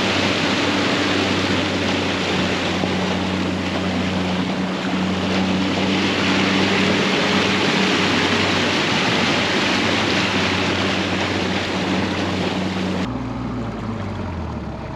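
Small fishing boat's petrol engine running steadily under way, under a loud, even rush of wind and water. About thirteen seconds in the rush cuts off abruptly, leaving only the engine's low hum.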